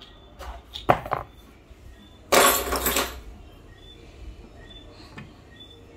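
A few light clinks and knocks in the first second and a half, then a loud hiss lasting under a second, a little over two seconds in. Faint short high tones follow.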